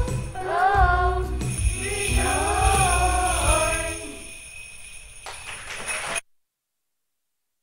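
Children's choir singing the closing phrase of a Christmas song over a backing track with jingle bells. After about four seconds the voices stop and the music fades, then the sound cuts off abruptly to dead silence about six seconds in.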